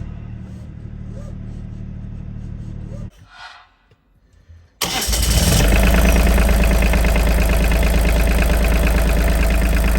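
A boat's three-cylinder Volvo Penta D1-30 inboard diesel running steadily; after a brief break it is heard again a few seconds in, suddenly much louder and close up, running evenly with a fast low chug, as it is test-run after a new oil filter.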